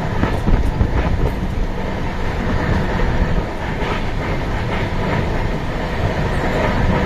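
Passenger train running along the track, heard at an open carriage doorway: a steady rumble of wheels on the rails with scattered clicks.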